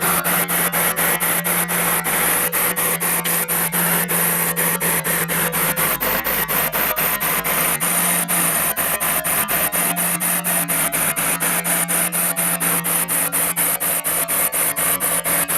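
Heavy earthmoving machine working: a steady low engine hum under loud, noisy scraping, pulsing about four times a second.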